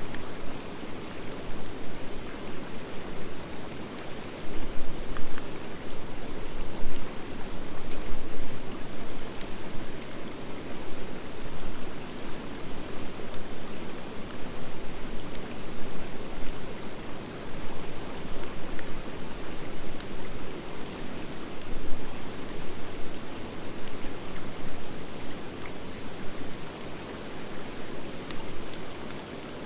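Driftwood and dry hardwood campfire burning with a steady rushing sound and scattered sharp crackles and pops.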